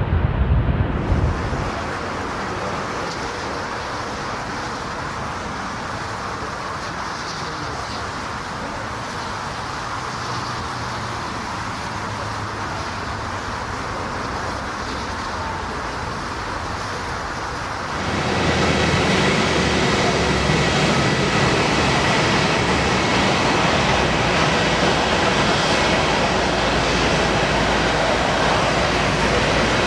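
Jet airliner engines running, a steady rushing noise. About 18 seconds in it changes abruptly, becoming louder with a faint steady whine in it.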